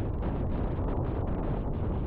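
River water rushing steadily, a dense, even noise of flowing water strongest in the low end.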